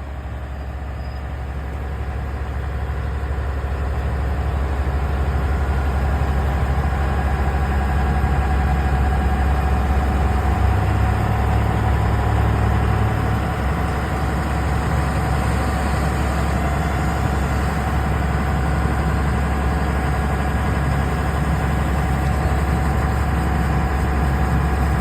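Heavy diesel engine running steadily with a deep low hum, growing louder over the first several seconds and then holding.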